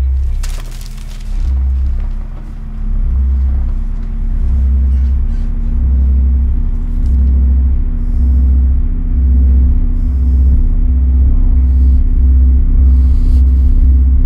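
Suspense film score: deep bass pulses over a held low drone. The pulses grow louder and come faster, about one a second at first and about two a second near the end. A brief hiss sounds about half a second in.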